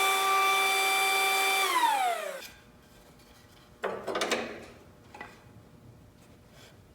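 Small benchtop thickness planer running without load with a steady whine, then switched off about two seconds in, its pitch falling as the cutterhead spins down to a stop. About a second and a half later comes a short wooden knock and rattle.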